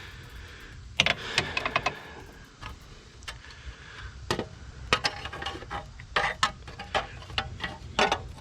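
Scattered light metallic clicks and taps, a dozen or so spread unevenly, from small bolts and a metal heat shield being handled and positioned in an engine bay.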